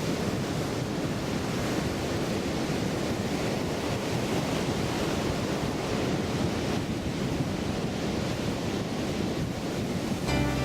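Ocean surf washing onto a beach: a steady rush of waves, with wind.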